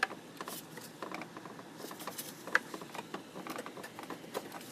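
Irregular light clicks and rustling of plastic and rubber as a hose is worked off a car's plastic air intake duct by hand.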